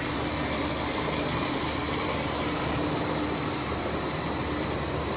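PP raffia baler-twine extrusion line running: a steady mechanical drone with a constant high whine and a lower hum.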